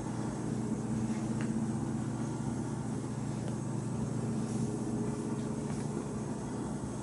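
A steady low mechanical hum, even throughout, with a few faint ticks.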